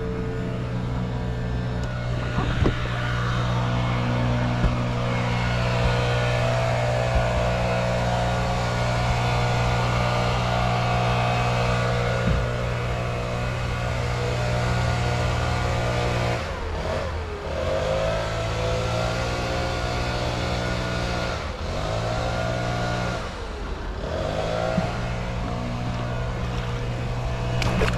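Outboard motor of a Crestliner 1650 Fish Hawk aluminum fishing boat running at speed with a steady drone. Three times in the second half the engine note briefly drops in pitch and climbs back.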